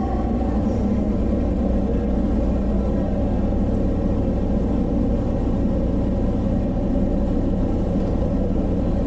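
Odakyu Romancecar VSE electric train rolling slowly along a platform: a steady low rumble with a constant hum.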